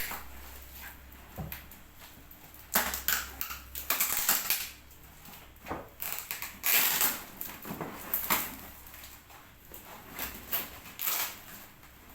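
Rifle packaging being cut and torn open by hand: irregular bursts of crackling, scraping and tearing, loudest in clusters a few seconds in and again past the middle.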